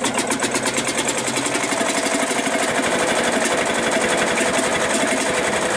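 Field Marshall tractor's single-cylinder two-stroke diesel running just after a shotgun-cartridge start, with a rapid, even beat that quickens over the first couple of seconds and then runs steadily.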